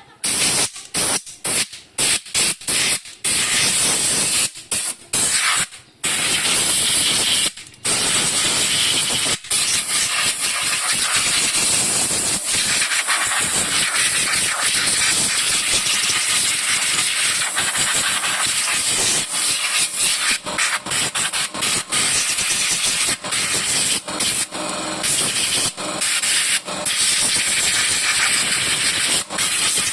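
Aerosol brake cleaner sprayed onto a car's rear drum brake parts: a string of short hissing spurts, then a long steady spray hiss with a few brief breaks, used to wash off dust that causes brake squeak.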